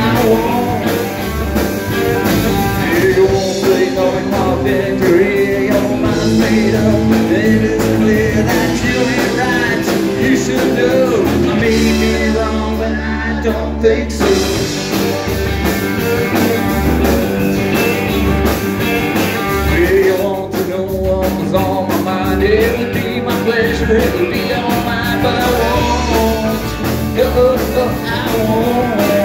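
Live rockabilly band playing: two electric guitars, electric bass and drum kit with a lead vocal. About twelve seconds in, the drums and top end drop out for a couple of seconds over a held low note, then the full band comes back in.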